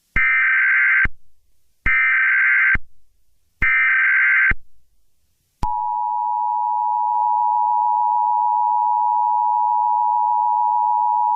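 Emergency Alert System tones: three roughly one-second bursts of screeching SAME header data, then, about five and a half seconds in, the steady two-tone EAS attention signal (853 and 960 Hz). This sequence marks the start of a new emergency alert.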